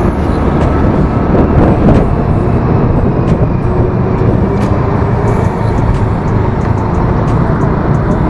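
Motor scooter riding at road speed: steady wind rush over the handlebar-mounted microphone, with the scooter's engine running underneath.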